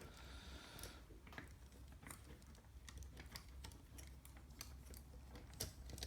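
Faint, irregular clicks and taps of plastic Lego Technic parts being handled, as the Technic figure is worked into the helicopter's seat.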